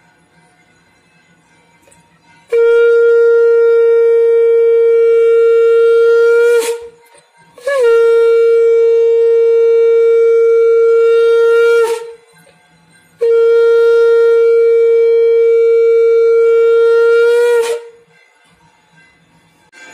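Conch shell (shankh) blown in three long blasts on one steady note, each about four to five seconds with a brief wobble as it ends, the first starting a couple of seconds in. The three blasts mark the Hindu evening lamp ritual (sandhya).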